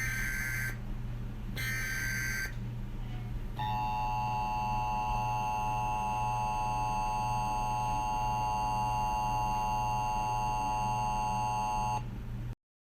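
Emergency Alert System broadcast tones: two short bursts of warbling SAME header data, then the EAS two-tone attention signal, a steady harsh dual tone lasting about eight seconds that cuts off abruptly near the end. A steady low hum runs underneath.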